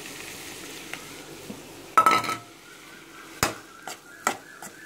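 A cooking spoon knocking against an aluminium kadai while potatoes are mixed into the masala: one loud clang with a brief ring about two seconds in, then several sharp separate knocks.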